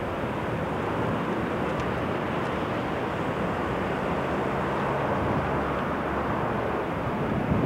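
Diesel engine of a Daimler Fleetline double-decker bus running steadily as the bus approaches at low speed, heard over street noise.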